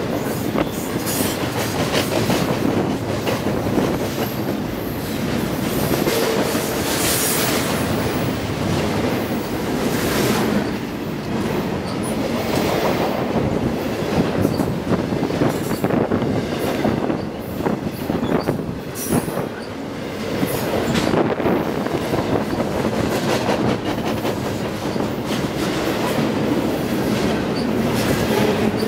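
CN double-stack intermodal container train passing close at speed: steel wheels rolling on the rails in a steady, loud rumble, with brief high wheel squeals now and then.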